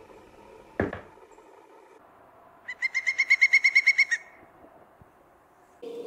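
A single sharp knock on wood, a recreation of the Ivory-billed Woodpecker's double knock. About two seconds later comes a louder rapid run of about fifteen high, evenly pitched bird notes lasting a second and a half.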